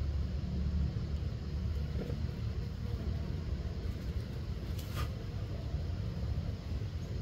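A steady low rumble, with a single brief click about five seconds in.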